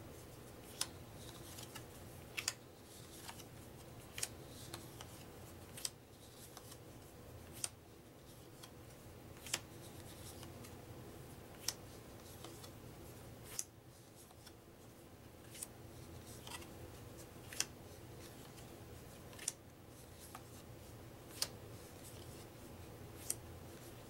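Cardstock game cards being flipped off a stack one at a time: a short crisp snap about every two seconds, over a faint steady low hum.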